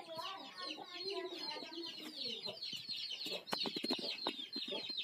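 Chickens clucking, over a constant high chatter of chirps, with a run of sharp clicks about three and a half seconds in.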